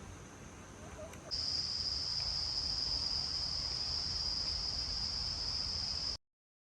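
Faint outdoor ambience, then about a second in a loud, steady, high-pitched insect drone sets in abruptly and holds level until it cuts off suddenly near the end.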